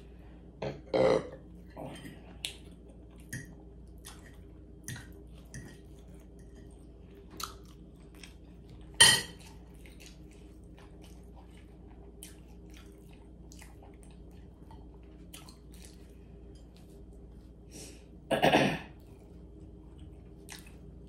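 Close-miked chewing and wet mouth smacks of a person eating, in scattered short clicks. A few louder sudden sounds stand out: one about a second in, a sharp one around nine seconds in, and a longer one of about half a second near the end.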